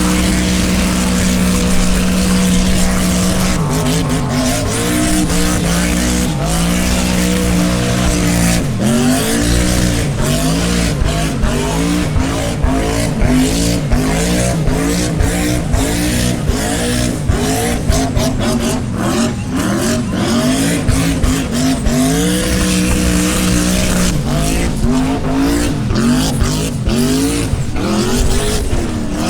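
V8 engine doing a burnout: held at a steady high pitch for the first few seconds, then revved up and down over and over, settling into a steady pitch twice in the second half, with the tires squealing throughout.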